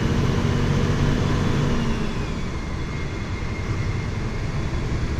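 City bus engine running with road rumble, heard from inside the bus; the engine note eases off about two seconds in.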